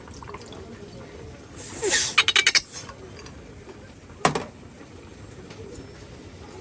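A brief rustle, then a quick run of about six sharp clinks, like dishes or utensils being handled. About two seconds later comes a single knock.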